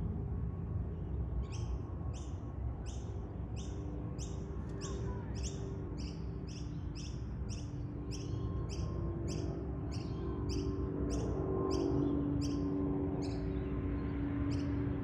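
Distant rumble of an Airbus A350-900's Rolls-Royce Trent XWB engines as the jet climbs out, swelling a little about two-thirds of the way through. Over it, a bird's high, downward-sliding chirps repeat about twice a second and stop near the end.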